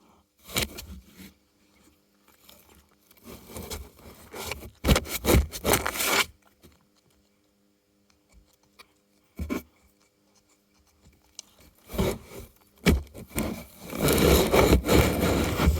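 Cardboard scraping and rubbing in irregular bursts as a cat works at a cardboard food toy, the longest busy stretch near the end.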